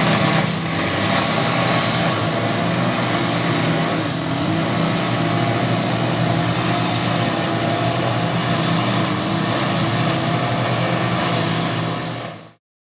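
Petrol lawnmower engine running steadily under load, with a dense hiss of cutting over its hum. It fades out quickly near the end.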